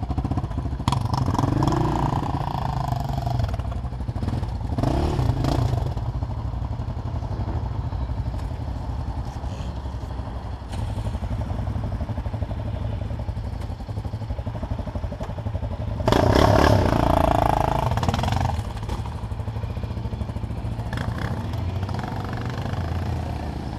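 Sport quad engine idling and pulling along at low speed, a steady low thrum, with other motorcycle and quad engines around it. About two-thirds of the way through, the engine noise gets louder for a couple of seconds.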